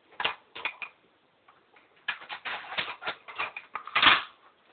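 Plastic clicks and rattles from the BuzzBee Double Shot toy dart blaster being handled and cocked, with a run of quick clicks and a louder burst of noise about four seconds in.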